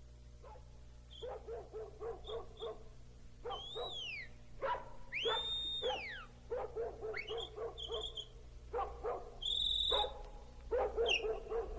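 Animal calls: runs of quick, short calls mixed with clear whistled notes that rise and fall in pitch.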